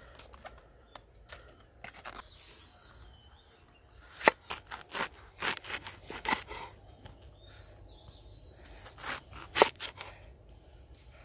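A cleaver chopping through a banana flower heart onto a wooden chopping board. A sharp knock comes about four seconds in, then a run of cuts over the next two seconds and another cluster of strikes near the end.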